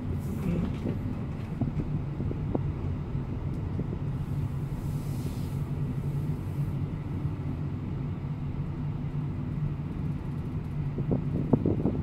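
Steady low rumble of a car driving slowly, with engine hum and tyre noise heard from inside the cabin.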